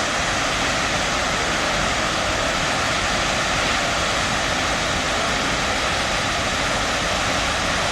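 Steady rush of water from Chitrakote Falls, a wide, high-volume waterfall: a loud, even wash of noise with no distinct events.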